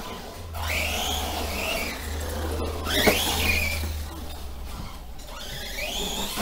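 Brushless motor of a Remo Hobby Dinosaurs Master 5 RC monster truck, running on a 3S battery, whining up and down in pitch three times as the throttle is worked, with a knock about three seconds in.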